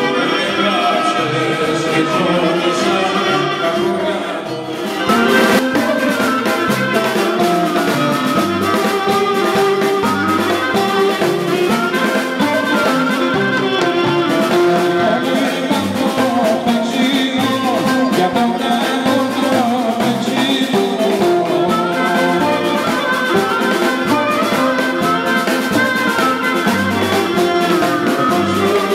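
Live Greek regional folk music of Epirus played by a dance band: a clarinet leading, with a man singing into a microphone. The music dips briefly in level about four seconds in, then carries on.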